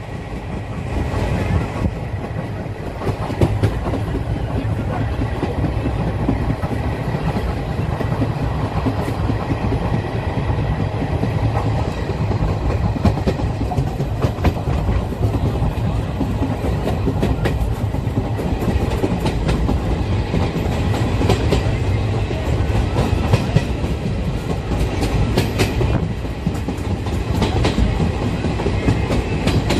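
Local passenger train running at speed, its wheels clattering over the rail joints in a run of sharp clicks over a steady low rumble, heard from an open window of the coach.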